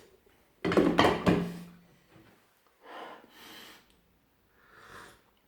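A person tasting hot coffee: a loud sip with a short hum about a second in, then two softer breaths out.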